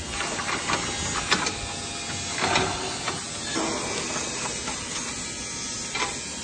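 Aluminium folding stage frame being handled: a few light metal clicks and knocks from the legs and fittings, the sharpest about a second in, over a steady hiss.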